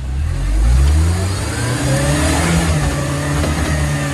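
1996 Jeep Wrangler's four-cylinder engine revving hard under load through mud, its pitch climbing and falling about halfway in.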